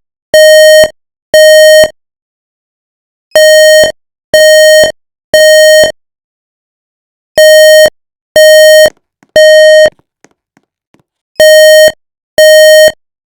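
Building fire alarm sounding the temporal-three evacuation tone: three loud half-second beeps on one steady pitch, a pause of about a second and a half, then three more, repeating about every four seconds. This pattern is the standard signal to evacuate the building.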